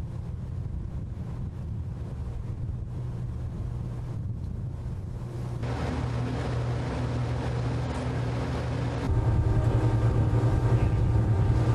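A motor runs steadily with a low hum, with wind on the microphone. It gets louder and fuller about nine seconds in.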